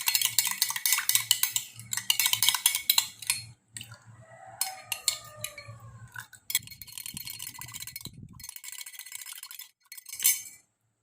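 A spoon stirring lime juice and soy sauce, clinking rapidly against the sides of the container in two spells with a break in the middle.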